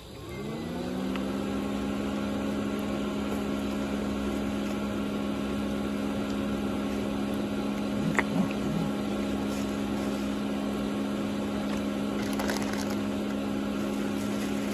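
A motor-driven machine hum: it winds up in pitch over about a second, runs steadily, then winds down at the end.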